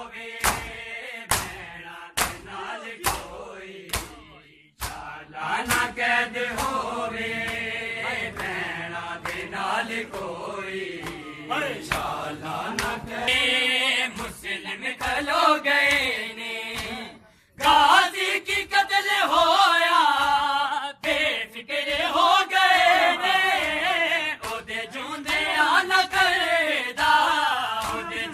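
A crowd of mourners doing matam, bare hands slapping their chests in unison about twice a second. After about five seconds, men's voices chant a Punjabi noha lament over the beating.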